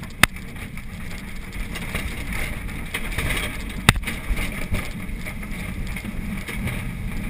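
Schweizer 1-34 sailplane on its take-off ground run over a grass strip: a steady rumble and rush of air in the cockpit, with two sharp knocks about a quarter second in and again near four seconds in.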